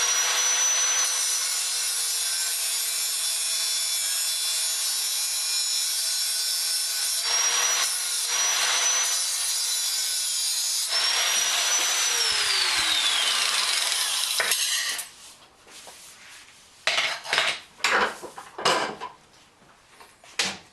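Electric power tool cutting metal stock: a loud, steady motor whine over a rasping cutting noise, which winds down with a falling whine about twelve seconds in. A few sharp metal clanks follow as the pieces are handled.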